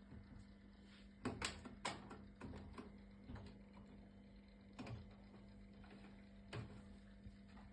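Worcester 24i Junior combi gas boiler giving irregular sharp ticks and knocks over a steady low hum. A cluster of knocks comes about a second and a half in, then single ones further apart. These are the banging noises the boiler is faulted for.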